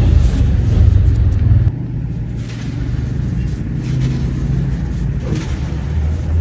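Low, steady rumble that drops in level just under two seconds in and then carries on more quietly.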